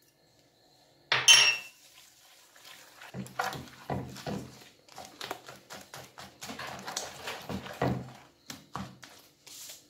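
Frothy batter being stirred by hand in a glazed terracotta bowl: a sharp clink against the bowl about a second in, then a run of repeated swishing strokes as the mixture is worked round.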